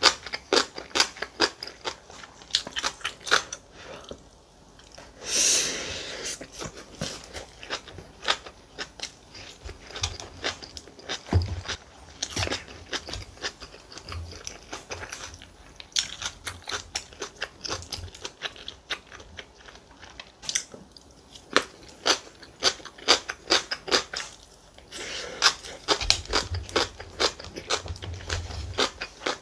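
Close-miked eating: chewing and crunching on rice, kimchi and side dishes, with many small clicks of chopsticks and spoon. A louder rushing sound about five seconds in.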